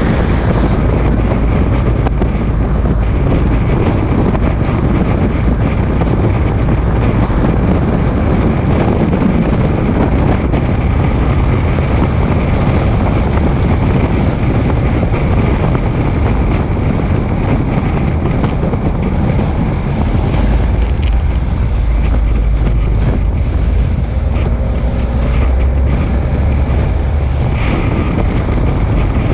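Steady, loud wind noise buffeting the microphone over the running of a moving vehicle.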